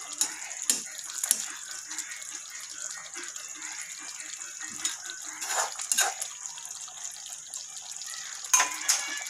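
A metal slotted spoon stirring a thick stew in a stainless steel pot, knocking and clinking against the pot in a few sharp clicks near the start, in the middle and near the end.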